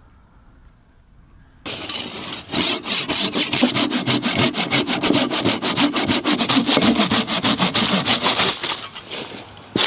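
Hand saw cutting into wood in quick, regular strokes, several a second, starting about a second and a half in; the sawing eases off briefly near the end, then picks up again.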